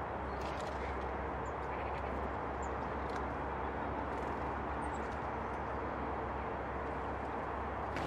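Steady rushing background noise with a low hum beneath it, and a few faint, very short high chirps from small woodland birds scattered through the first half.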